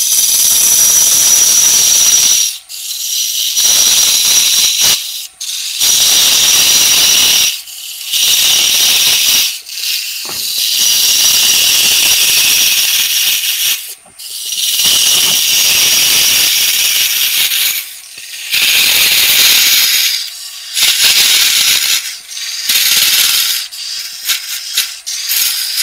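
A 1/8-inch parting tool cutting into wood spinning on a lathe, parting the vase off nearly all the way through: a loud high hiss with a steady whistle in it. It comes in about ten cuts of one to three and a half seconds with short breaks between, the cuts growing shorter and choppier near the end.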